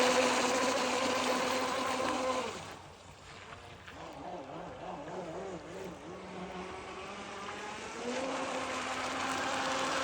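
RC speedboat motor whining at a steady pitch, dropping away about two and a half seconds in to a faint, wavering drone, then rising loud and steady again about eight seconds in.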